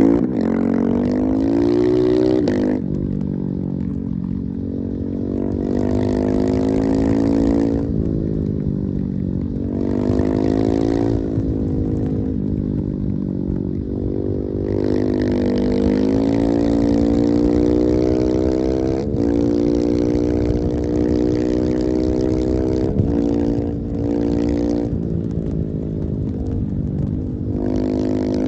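Husqvarna 701 single-cylinder motorcycle engine at full throttle, accelerating hard. Its pitch climbs steadily and then drops back sharply several times as it changes gear.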